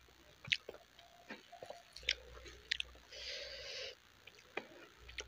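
Close-miked chewing of a mouthful of rice and curry, with sharp wet mouth smacks every second or so and soft squelching stretches in between.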